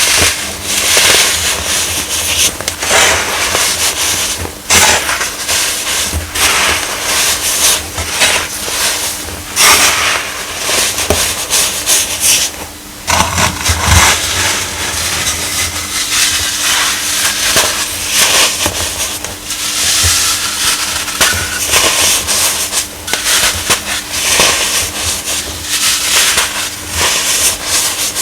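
Baking soda being crushed: continuous irregular crunching and crumbling, with many sharp crackles packed close together.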